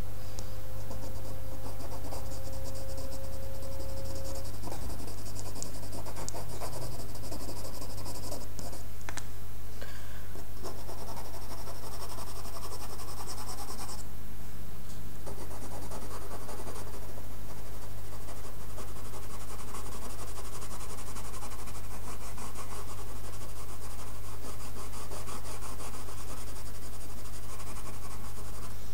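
A coloured pencil scratching across drawing paper in quick, continuous shading strokes, with a brief pause about halfway. A steady low electrical hum runs underneath.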